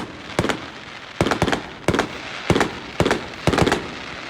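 Fireworks going off in a rapid, unbroken string of sharp bangs, a dozen or so in quick succession.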